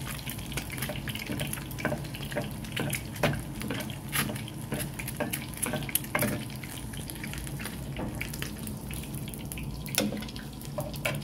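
An egg frying in hot oil in a pan, sizzling with irregular crackles and pops. Near the end there is a louder knock as the egg is lifted out onto a plate.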